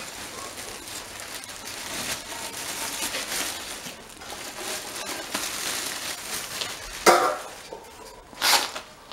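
Thin plastic bag crinkling and rustling as it is pulled off a metal grill frame, with two sharp knocks near the end, the first ringing briefly.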